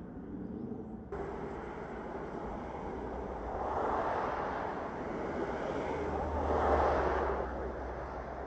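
Road traffic passing: two vehicles go by with a tyre-and-engine swell, the first about four seconds in and the second, louder one with a low rumble, about seven seconds in.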